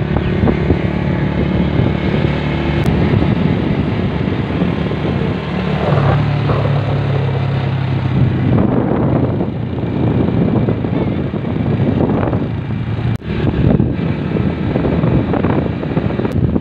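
Motorcycle engine running under way, heard from the pillion seat, with heavy wind noise on the microphone. The engine note gets louder about six seconds in.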